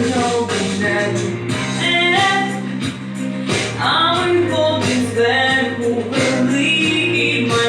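Music: a pop-rock ballad arrangement with sustained chords and bass under a wavering high melody line.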